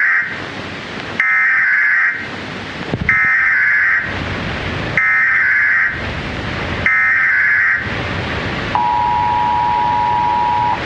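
Mock Emergency Alert System broadcast: five buzzy, roughly one-second data-tone bursts about two seconds apart over constant static hiss, in the manner of an EAS header. Near the end, the two-note EAS attention tone holds steady for about two seconds.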